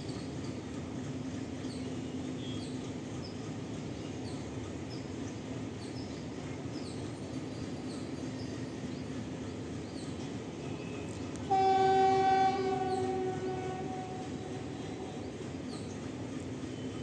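Horn of an approaching Indian Railways express locomotive sounding one long blast about two-thirds of the way through: loud for about a second, then trailing off over the next few seconds. A steady low hum runs underneath.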